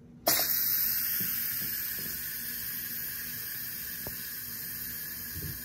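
Instant Pot pressure cooker's steam release valve flipped open, venting leftover steam in a sudden loud hiss that slowly fades: the release of remaining pressure after the eggs have rested five minutes on natural release.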